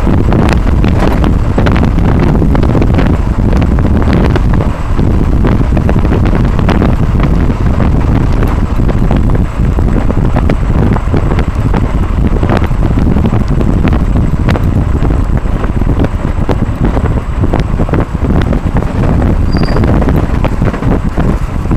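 Heavy wind buffeting on the action camera's microphone as a motorcycle rides down the road, with the bike running underneath. The rush stays loud and steady, with many short sharp ticks scattered through it.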